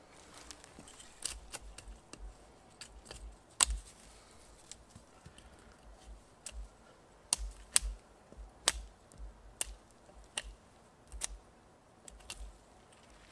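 Knife cutting at a thin wooden pole in short, sharp snicks at irregular intervals, about fifteen in all, some much louder than others.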